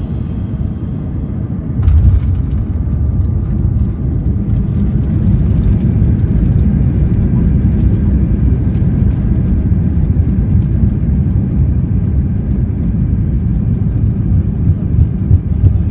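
Cabin noise of an Airbus A320-200 heard from a window seat over the wing: a steady low rumble of jet engines and airflow, which gets suddenly louder about two seconds in.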